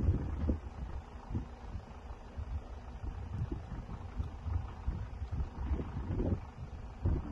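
Wind buffeting a phone's microphone outdoors, heard as irregular low rumbling gusts and thumps.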